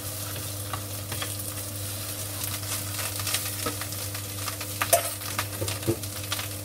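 Sausage, onions and rice sizzling in a nonstick frying pan while a wooden spatula stirs, with scattered knocks and scrapes of the spatula against the pan, the sharpest about five seconds in.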